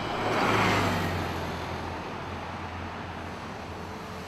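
Road traffic: a vehicle passes close by, loudest about half a second in, then a steady rumble of passing cars.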